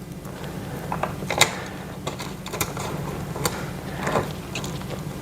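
Allen key turning a screw to fasten an armrest to a gaming chair's seat: irregular light metal clicks and scrapes as the key is turned and reset in the screw head.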